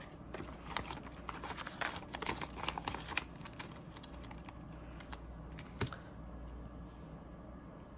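Crinkling and clicking of a clear plastic cash envelope being handled and pressed shut as a bill is tucked in, busiest over the first three seconds, with one sharp click about six seconds in. A low steady hum runs underneath.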